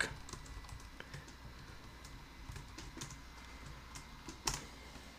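Computer keyboard typing: faint, scattered key clicks, with one louder keystroke about four and a half seconds in.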